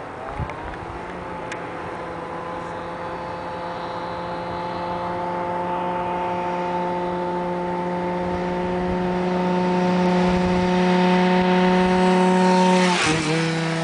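Tuned 70cc two-stroke scooter engine (Minarelli horizontal block with Top Performances Trophy 70 cylinder and Technigas RS70 exhaust) running flat out at high, steady revs and growing louder as it approaches. Near the end it passes close by with a sudden drop in pitch.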